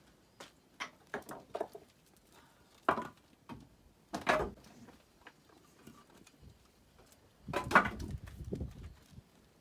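Split firewood being stacked by hand: an irregular series of wooden knocks and clatters as logs are set down against one another, with the loudest cluster near the end.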